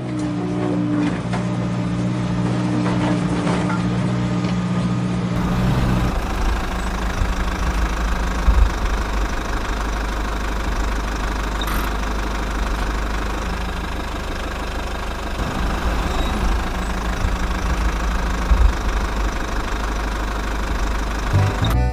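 An engine running at idle with a knocking quality. It holds a steady low hum for about the first six seconds, then turns rougher and noisier.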